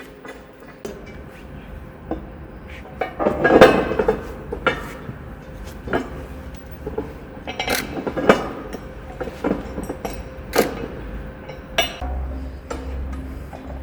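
Irregular metallic clinks, knocks and scrapes of steel parts and hand tools being handled while a sawmill bed is put together, with a louder patch of clatter about three to four seconds in.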